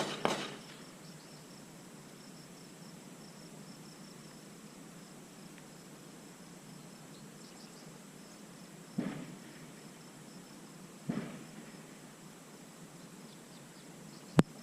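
Gunshots on a shooting range. Two quieter shots about two seconds apart come near the middle, and a single sharp, much louder shot comes near the end, over a steady chirring of insects.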